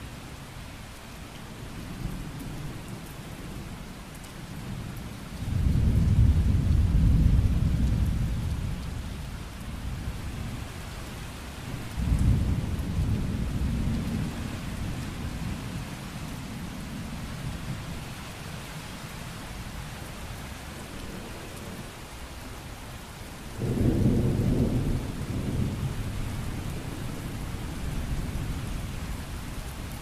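Steady rain falling, with three low rolls of thunder. The loudest starts suddenly about five seconds in and fades over several seconds, another comes around twelve seconds, and a third near the end.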